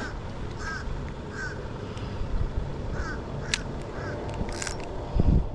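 A bird calling five times with short rising-and-falling notes, spaced half a second to a second and a half apart, over a steady low rumble. A loud low thump near the end.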